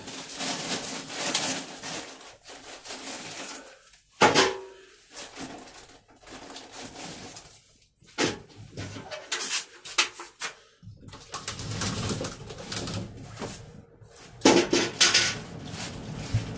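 Handling noises from potting work: rustling, scraping, and a few sharp knocks of plastic plant baskets and soil being moved, with a cluster of knocks near the end. A bird calls in the background.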